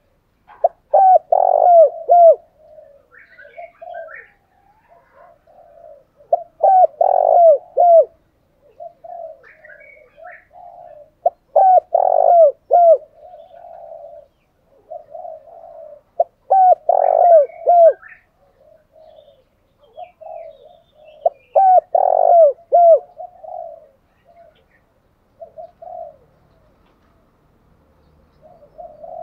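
Spotted dove cooing. A loud burst of several quick falling coo notes comes about every five seconds, with softer cooing in between and a few faint higher chirps.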